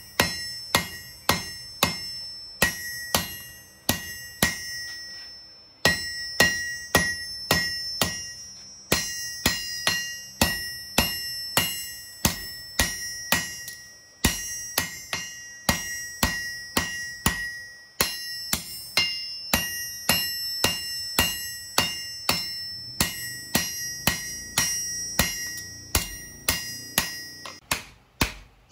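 Hand hammer striking steel on an anvil during manual knife forging, about two blows a second, each ringing with a high metallic ring. The hammering pauses briefly a few times and stops near the end.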